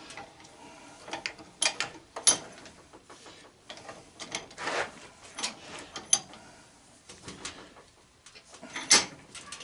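Round-jaw locking pliers and a steel bench vise on a barbecue propane regulator: scattered metal clicks, clanks and short scrapes as the stuck threaded fitting is gripped and wrenched to break it loose. The sharpest clanks come about two seconds in and near the end.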